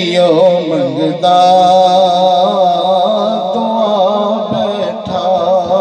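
A man's voice chanting a devotional recitation through a microphone and PA system, in long, wavering, drawn-out notes with short breaks between phrases.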